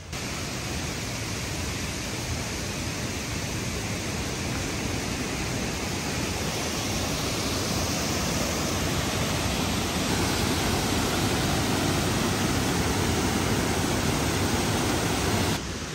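Waterfall rushing into a rocky pool: a steady, dense wash of falling water that grows somewhat louder toward the end.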